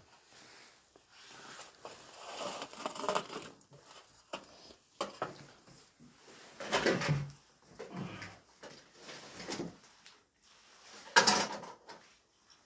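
Eating and handling sounds: pizza slices being torn apart and moved about on a metal tray, with a few short low murmurs and a brief, louder sound about eleven seconds in.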